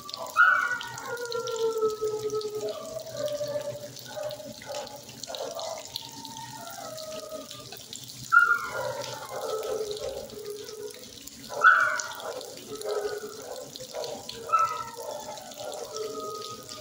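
Dogs barking and howling in an echoing shelter kennel: repeated cries that drop in pitch and trail off, the loudest starting sharply about four times, over a steady background hiss.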